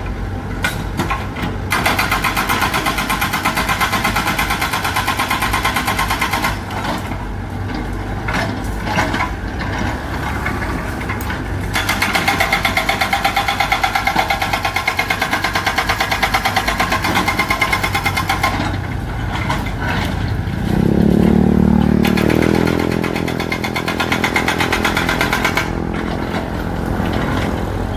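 Diesel engine of a Komatsu PC75 excavator running with a fast, even firing clatter that grows stronger and weaker over stretches. About three-quarters of the way through, a pitched tone rises and holds for a couple of seconds before dropping away.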